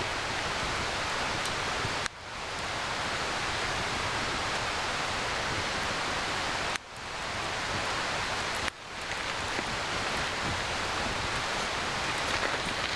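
Steady rain falling, an even hiss. It drops away abruptly three times, then swells back within a second or so.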